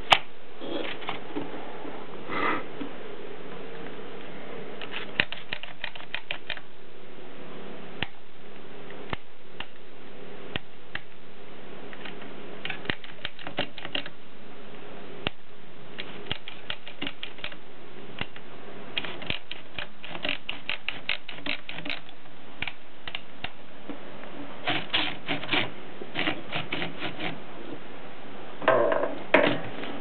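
Black Bakelite Optima Plana portable typewriter being typed on: quick runs of sharp key-and-typebar clicks broken by pauses. Near the end there is a longer, louder mechanical noise from the machine.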